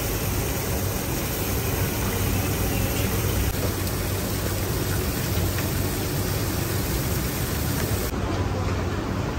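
Steady sizzling hiss of fish frying in a wok of hot oil and on a flat griddle, dropping off sharply near the end.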